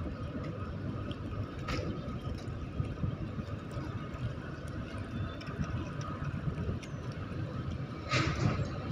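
Low, steady rumble of a container ship's engine as it passes under way, with a faint steady hum above it. A short noisy burst comes near the end.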